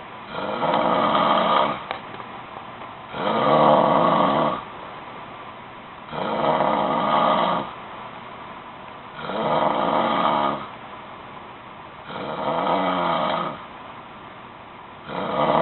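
A sleeping person snoring loudly, one long snore about every three seconds: five in full, and a sixth starting near the end.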